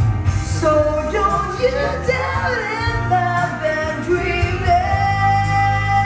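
Karaoke singing: voices singing over a loud music backing track with a steady bass line.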